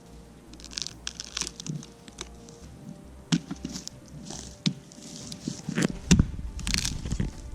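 Firewood being chopped and broken with an axe: scattered sharp cracks and snaps of wood, with heavier thuds near the end.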